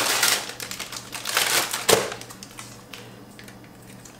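Plastic food packaging crinkling and crackling as it is handled and opened. It is densest in the first two seconds, with a sharp crackle just before two seconds in, then only a few light clicks.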